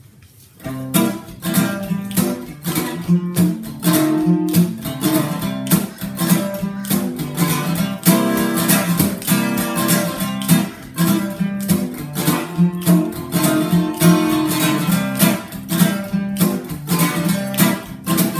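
Acoustic guitar strummed in a swing rhythm, starting about a second in: the instrumental intro of a song.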